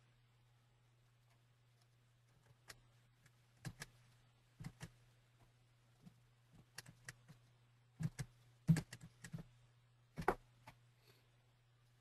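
Scattered computer clicks and taps at irregular intervals, several in quick pairs and the loudest a little past the middle, over a steady low electrical hum on the recording line.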